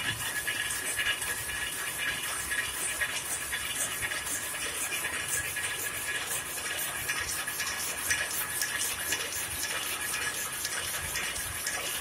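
Rapier loom running at speed, converted for rapier weaving with a tuck-in selvedge device. It makes a fast, steady mechanical clatter of rapid, regular clicks.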